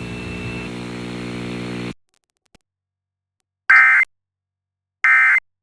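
A steady buzzing hum cuts off abruptly about two seconds in. After a faint click and a pause, two short identical bursts of Emergency Alert System end-of-message data tones sound about a second and a half apart, marking the end of the alert test.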